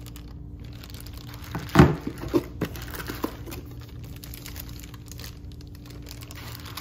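Clear plastic bag crinkling as a flag pole wrapped in it is handled, with a few louder crackles or knocks between about two and three and a half seconds in, the loudest near two seconds.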